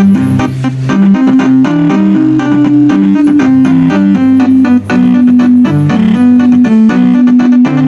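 Multi-note 'telolet' bus horn set, a 24-note array of Basuri-style horn trumpets switched by a MIDI-driven controller, playing a melody. The notes are held and step up and down, over a lower accompanying line.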